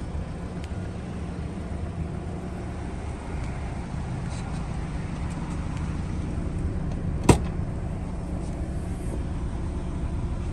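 Subaru Legacy GT twin-turbo's flat-four engine idling steadily, with one sharp click about seven seconds in as the rear hatch latch is released.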